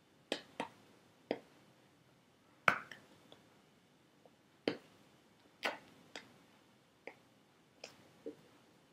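Hands striking each other and the body while signing, giving about ten irregular sharp taps and slaps, the loudest a little under three seconds in, over faint room tone.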